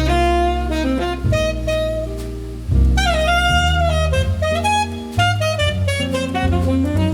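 Background jazz music with a saxophone melody over bass.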